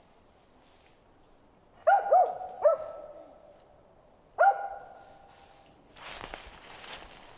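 A dog barking four times in short, sharp barks: three in quick succession about two seconds in, then one more a couple of seconds later. A burst of rustling noise follows near the end.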